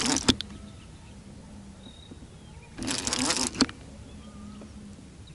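Fishing reel being cranked in two short bursts of about a second each, each ending in a sharp click, as line is wound in on a hooked fish.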